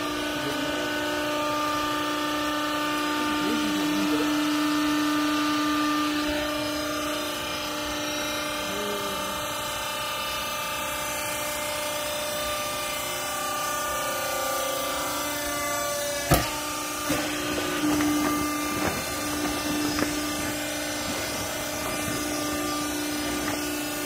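Hydraulic power unit of a vertical used-clothes baler running with a steady hum while the press plate compresses the load. A sharp knock about 16 seconds in, followed by a few smaller knocks.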